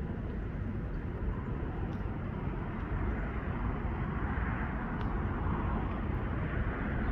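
Steady outdoor background noise: a low rumble with a lighter hiss above it and a few faint ticks.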